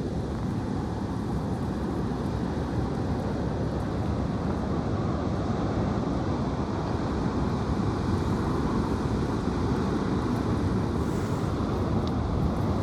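High wind rumbling steadily against the microphone.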